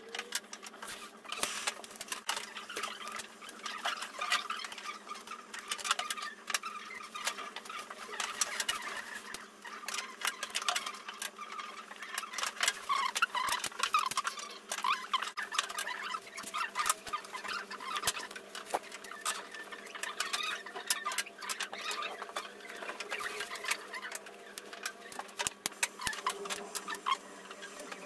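Dense, irregular light clicking and scratching from hand work at a dental bench: a pencil on a stone dental cast and small orthodontic wire parts handled with instruments, over a steady low hum.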